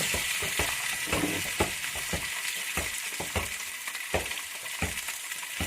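Masala-coated fish pieces shallow-frying in oil in a pan on a low flame: a steady sizzle with irregular pops and crackles.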